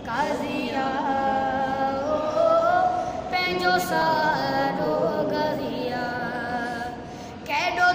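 A boy singing a Sindhi qaseeda unaccompanied, holding long notes with winding, ornamented glides between them and pausing briefly near the end.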